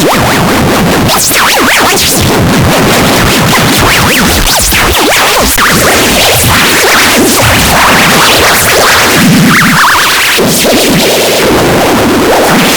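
A very loud, dense cacophony of overlapping edited sound effects and music, full of whip-like swishes. It runs unbroken with no pauses.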